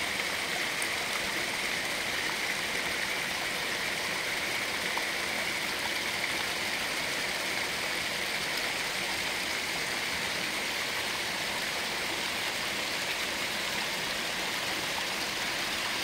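Small spring stream splashing down a mossy rock ledge in a little cascade and running over stones: a steady, even rush of water.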